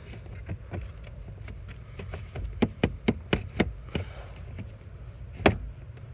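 Hard plastic knocks and clicks of a replacement blower motor being wiggled and lined up in its plastic housing, a quick run of them in the middle and one louder knock near the end.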